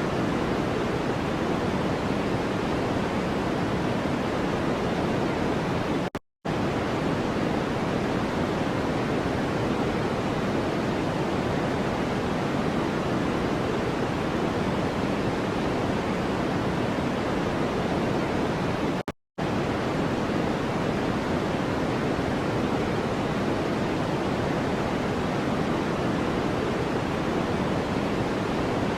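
Steady electronic white noise with a soft, even hiss that is heavier in the low and middle range than at the top. It cuts out to silence for a split second twice, about six seconds in and again about nineteen seconds in.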